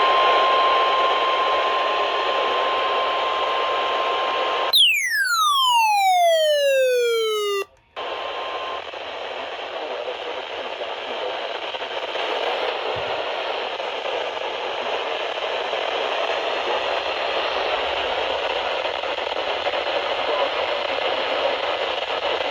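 Steady radio static hiss. A faint steady tone near 1 kHz runs under it for about the first nine seconds, and about five seconds in a loud electronic tone sweeps downward for about three seconds, then cuts off suddenly with a brief dropout before the hiss resumes.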